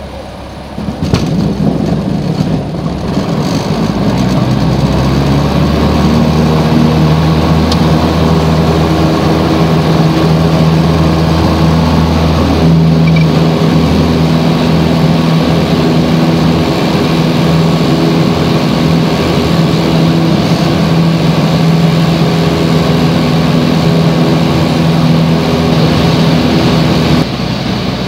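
Piper PA-28's single piston engine and propeller heard from inside the cabin, opened up to full power about a second in and building over a few seconds into a loud, steady takeoff-and-climb drone. The engine note drops somewhat near the end.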